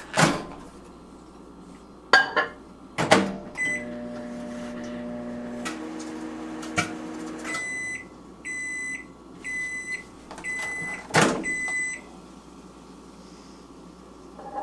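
Microwave oven in use: the door clunks shut, then the oven runs with a steady hum, followed by a string of high-pitched beeps and another clunk of the door.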